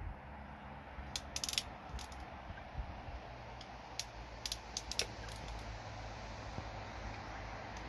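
Ratcheting crimping pliers clicking in a few short runs as a connector is crimped onto a wire, over a steady low hum.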